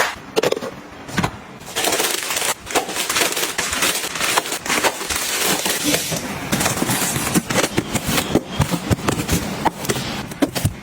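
Close-up handling sounds: many quick clicks and taps over continuous rustling, as items and containers are moved, unpacked and set down.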